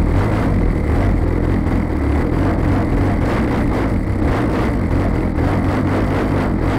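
Engine of a large radio-controlled aerobatic model plane running steadily, heard from a camera mounted on its wing, with wind rushing over the microphone.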